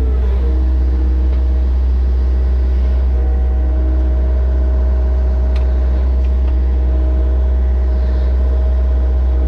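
Mini excavator's diesel engine running steadily at a constant speed, with a strong low drone and steady pitched hum.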